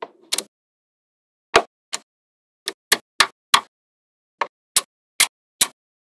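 Magnetic balls clicking as slabs built from them are snapped into place against one another: about a dozen short, sharp clicks at irregular intervals, with dead silence between them.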